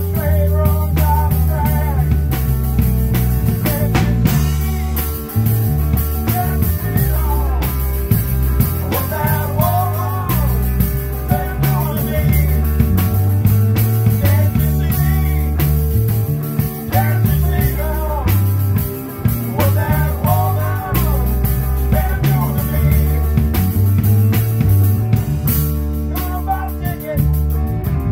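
A live band plays an instrumental passage: acoustic-electric guitar strumming, drum kit keeping a steady beat, and a fiddle playing a sliding, bending melodic lead.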